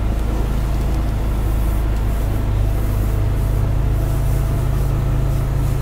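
A boat's engine running steadily, heard from inside the cabin as a constant low hum under an even hiss.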